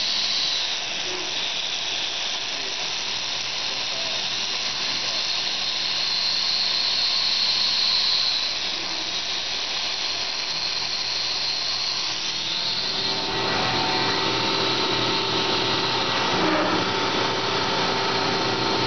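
CNC mill running a rotary broach tool down into a steel part in a fixture, under a steady hiss of coolant mist spray. About two-thirds of the way through, a steady motor whine joins in.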